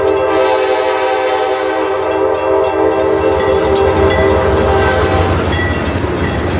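Locomotive air horn sounding one long, steady multi-note chord that fades out about five seconds in, over the low rumble of a train running by.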